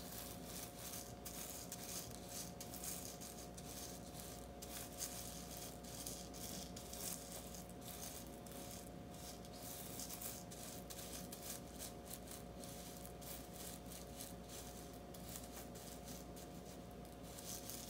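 Loose hotfix rhinestones rustling and ticking as a brush sweeps them in circles over a rhinestone flock template, a faint, continuous scratchy patter.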